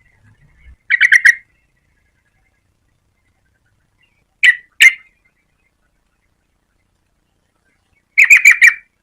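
Yellow-vented bulbul calling in short chattering bursts: a quick run of about five notes, then two single sharp notes, then another quick run near the end.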